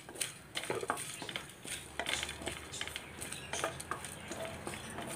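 Wooden spatula stirring dry-roasted black peppercorns, garlic and coriander powder in a metal pan: irregular scraping, with the whole spices clicking and rattling against the metal.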